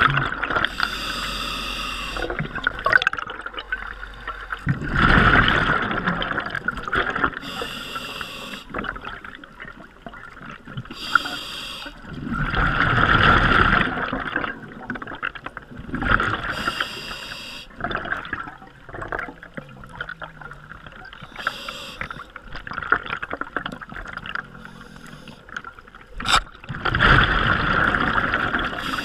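Scuba diver breathing through a regulator underwater: short hissing inhalations alternate with louder rushes of exhaled bubbles, several breaths in a row. A single sharp click comes near the end.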